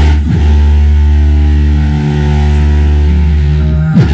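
Car sound system in a Fiat Palio, a horn-loaded bass box (corneteira) in the boot, playing bass-heavy music very loudly with a deep, steady low end. A quick falling bass sweep comes at the start and again near the end. The amplifier's limiter has been turned down so the speaker plays harder, at full volume.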